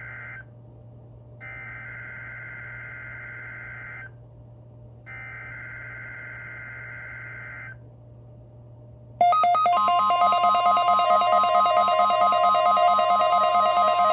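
NOAA Weather Radio test signal. Buzzy digital SAME header bursts come first: one ends about half a second in, then two more of about two and a half seconds follow, a second apart. About a second and a half after the last burst, a much louder warning alarm starts and runs on: a pulsing, warbling electronic tone over a steady tone of about 1050 Hz, the alarm that switches on weather-alert receivers.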